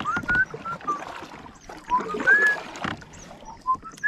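A small boat being paddled across a lake, the paddle swishing and dripping in the water, with louder strokes near the start and about two seconds in. Over it a bird sings a string of short whistled notes, some rising.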